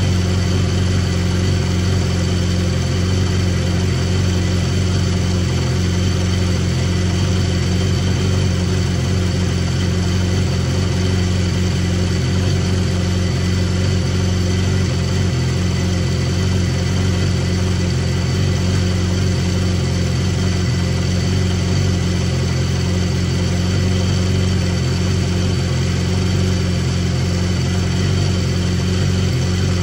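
BMW S1000R's inline-four engine idling steadily, running on a newly fitted manual cam chain tensioner that is being adjusted to cut the cam chain rattle.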